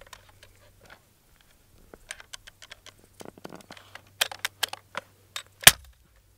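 Clicks and rattles of a High Standard 10B semi-automatic 12-gauge bullpup shotgun's action being worked by hand, then one sharp knock near the end as the butt is struck down to force the bolt closed. The action will not close on its own: a hammer pin is working out and blocking the lifter.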